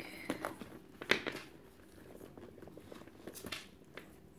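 Leather handbag and its detachable strap being handled, with a few light clicks and taps from the metal hardware, the sharpest about a second in, over a soft rustle.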